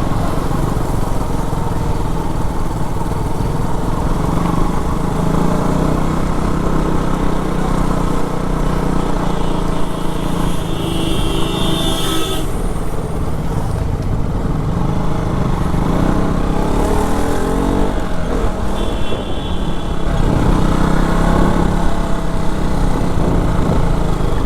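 KTM RC 200's single-cylinder engine running while the motorcycle is ridden through traffic, its pitch shifting with the throttle, under heavy wind rush on the microphone. A vehicle horn sounds twice, about ten and seventeen seconds in.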